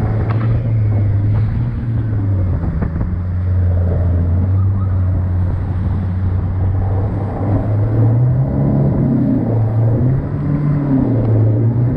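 Rigid inflatable boat's motor running under way, a steady low drone with water rushing past the hull. The engine note rises for a couple of seconds about eight seconds in, then settles back.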